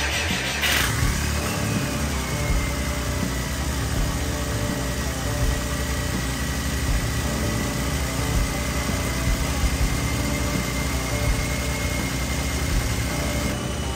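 Volkswagen 1.4 TDI three-cylinder turbo-diesel engine idling steadily, with a faint high whine over the running from about a second in until near the end.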